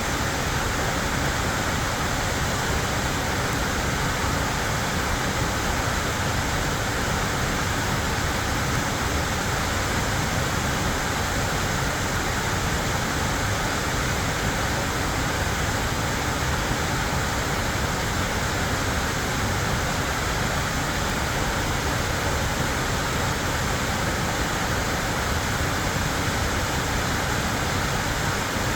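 Waterfall on a creek: water falling and splashing in a loud, steady rush.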